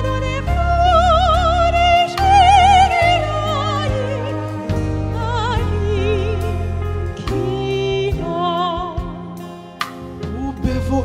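Soprano singing sustained notes with wide vibrato over a live band accompaniment of keyboard, bass and drums. The music softens briefly near the end.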